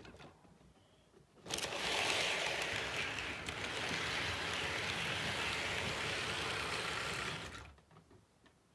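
HO scale model train running on the track: a steady whirring rattle of small motor and wheels on rail. It starts suddenly about a second and a half in, holds for about six seconds, then dies away.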